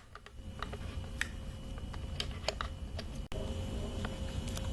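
Scattered light clicks and taps of plastic fuel pump module parts being handled and fitted together into their slots, over a faint steady hum.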